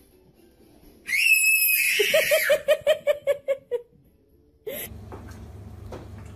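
A baby lets out a high-pitched squeal, then laughs in a quick run of about a dozen fading bursts. Near the end a steady low hum starts suddenly.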